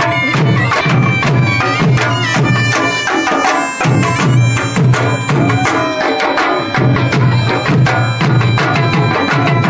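Several dhols, large double-headed barrel drums, beaten with sticks in a fast, driving rhythm, their low booms strongest, with a held high melody line sounding over the drumming.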